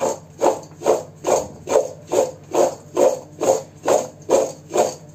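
Diced white radish cubes tossed in a stainless steel mixing bowl, the bowl shaken back and forth so the cubes slide and clatter against the metal in an even rhythm of about two and a half swishes a second, working the salt evenly through them.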